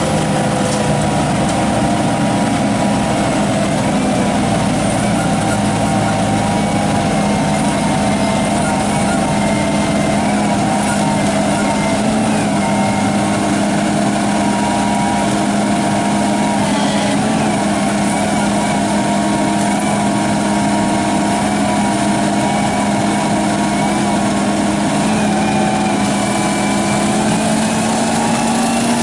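An engine running steadily at constant speed, its pitch rising slightly near the end.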